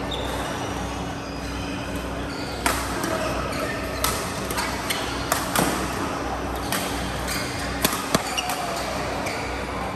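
Badminton rally: a series of sharp racket strikes on a shuttlecock, about ten crisp hits from a few seconds in until near the end, some in quick succession, over a steady background hum.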